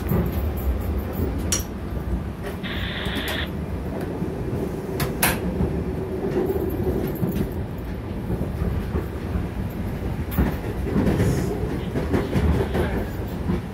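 SEPTA Regional Rail commuter car running along the track, heard inside the car: a steady low rumble of wheels on rail with sharp clacks. There is a brief high hiss about three seconds in.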